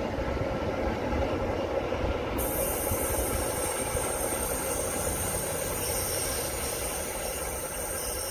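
ChME3 six-axle diesel shunting locomotive running light and moving away along the track: its diesel engine running steadily with the rumble of its wheels on the rails.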